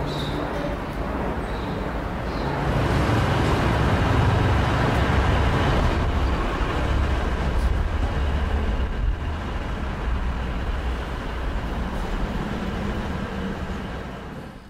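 Street traffic noise, a steady low rumble that swells for several seconds as a vehicle goes by, then eases and fades out near the end.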